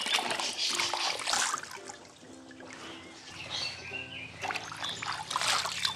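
Water splashing and trickling as raw vegetables (lettuce, herbs, cucumber) are washed by hand in a basin, in two spells with a quieter gap between them.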